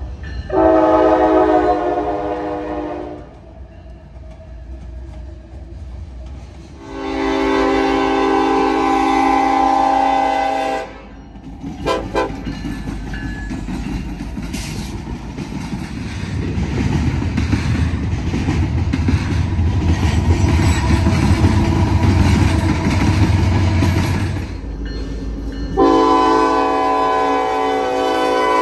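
Diesel locomotive horn sounding in long blasts (about a second in, again around seven seconds, and near the end), between freight cars rolling by on the rails and a Union Pacific diesel locomotive rumbling past in the middle.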